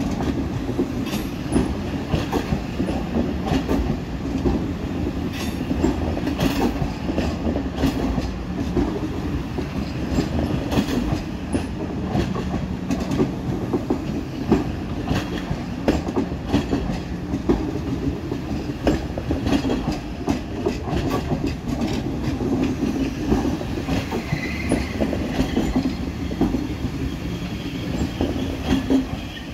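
Deutsche Bahn ICE 4 high-speed train rolling past. A steady low rumble runs under frequent irregular clacks of its wheels over rail joints and points.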